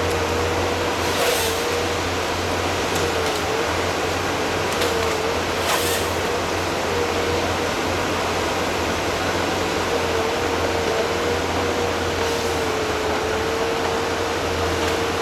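Sifor 414 forestry harvester with its four-cylinder engine and hydraulics running steadily under work, a steady whine that sags in pitch briefly several times as the felling head is worked. Two short sharp cracks stand out, a little over a second in and about six seconds in.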